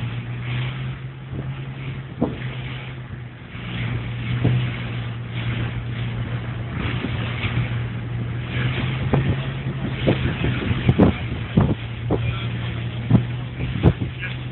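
Boat engines at speed, a steady low drone, under the rush of churning wake water and wind buffeting a phone's microphone. Sharp knocks come every second or so in the second half.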